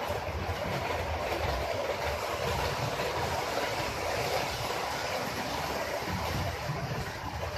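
HO scale model train running steadily along sectional track laid on table-top baseboards: an even rolling rumble of wheels and motor with no breaks.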